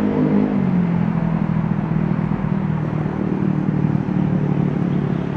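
A running motor hums steadily. Its pitch drops a little under a second in and then holds, over a haze of outdoor background noise.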